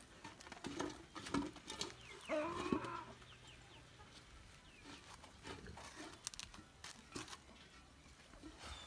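Chickens clucking, with a louder call a little over two seconds in, among scattered short clicks.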